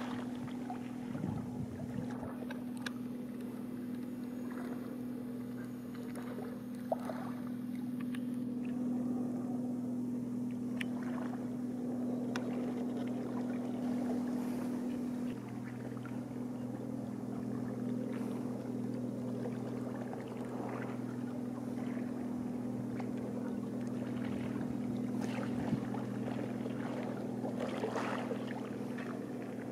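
A boat engine running steadily with a low, even hum, and water splashing now and then. The hum shifts slightly in tone about halfway through.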